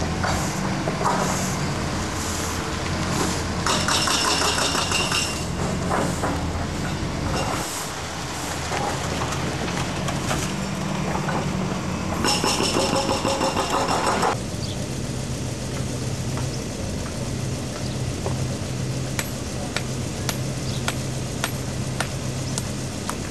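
Road traffic: vehicle engines running steadily, with a brief high-pitched squeal about four seconds in and a longer one from about twelve to fourteen seconds. Faint sharp taps come in near the end.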